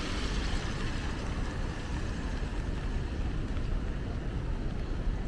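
Steady city street ambience: a low traffic rumble with an even hiss over it and no distinct events.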